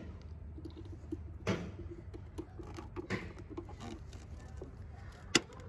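Hands handling a plastic Deutsch-style connector and MAP sensor, with light taps and scrapes over a low steady hum, then one sharp click about five seconds in as the plug snaps onto the sensor.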